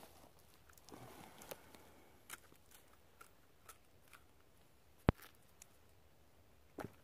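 Faint small clicks and scrapes of a knife cutting and trimming a wild mushroom's stem, with a soft rustle of undergrowth near the start and one sharp click about five seconds in.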